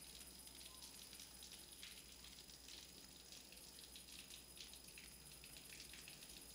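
Near silence: faint, irregular crackling ticks over a low steady hum.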